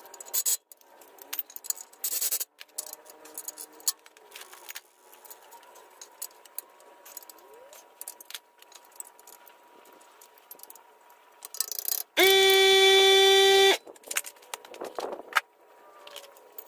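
Metal clinks and rattles of tools and parts being handled, then a cordless power tool runs in one steady, even-pitched burst of about a second and a half, about twelve seconds in, the loudest sound here.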